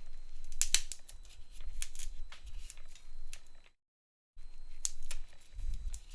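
A thin pry tool scraping and clicking as it works under the glued battery cells of a MacBook Pro A1502, with the adhesive softened by alcohol. There is a run of sharp clicks and scrapes, broken by a short cut to silence in the middle.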